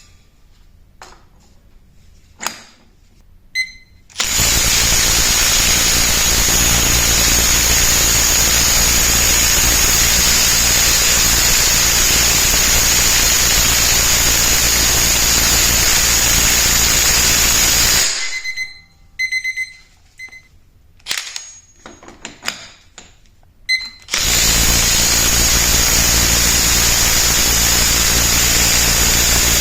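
Bosch cordless impact wrench with a 38 mm socket hammering continuously for about fourteen seconds, then falling silent. After a gap with clicks and a few short beeps, it starts a second continuous run about six seconds later.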